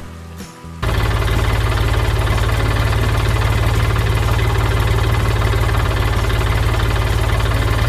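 Large engine running steadily, most likely the combine harvester's engine sound effect. It starts abruptly about a second in, with a fast, even chugging pulse.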